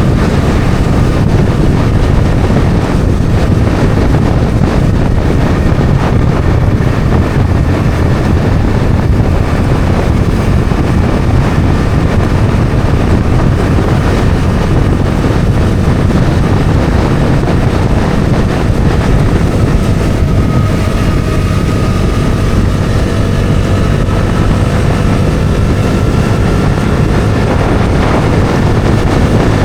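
Bajaj Dominar 400's single-cylinder engine and exhaust running at a steady cruising speed, with wind rushing over the microphone.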